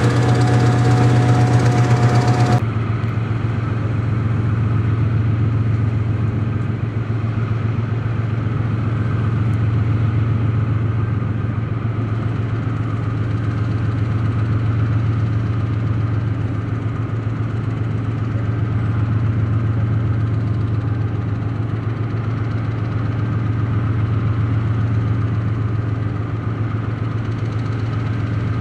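Hitachi diesel-electric locomotive engines idling with a steady low drone. About two and a half seconds in the sound changes abruptly to a duller, steady idle.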